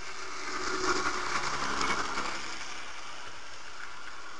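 H0-scale model train (BN F45 diesel locomotives pulling freight cars) passing fast, close by. The motor and wheel noise swells as the locomotives go by and eases back after about two seconds, while the cars' wheels click and rattle over the track.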